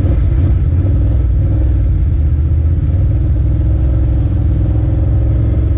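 Can-Am ATV engine running steadily at low riding speed, heard from the rider's seat as a loud, even hum.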